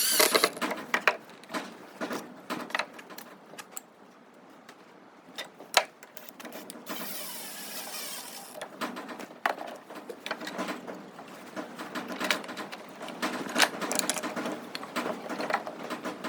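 Irregular clicks and knocks of workshop handling, tools and wood being worked, with a short hiss about seven seconds in.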